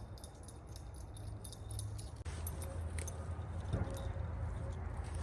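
Light metallic jingling made of many small high clicks, over a steady low hum.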